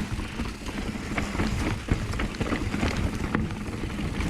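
Mountain bike descending a rough, rocky trail: tyres rumbling over rock with frequent sharp knocks and rattles from the bike, heard from a rider-mounted camera.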